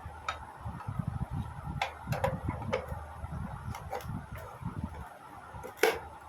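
Old Philips radio crackling: irregular clicks and pops over a hissing background with uneven low thumping, and one loud click near the end. This is the faulty sound output of the set.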